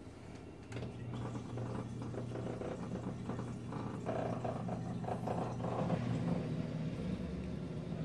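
Miele dishwasher's drain pump running with a steady low hum, pumping the water out; the hum strengthens just under a second in. The machine is draining again now that its F11 drain fault is cleared.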